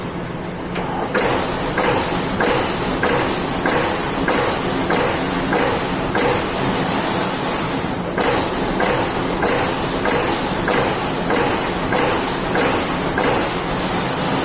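Amada Pega 357 CNC turret punch press hitting sheet metal in a steady run of strokes, about two to three a second, over a constant high hiss from the machine.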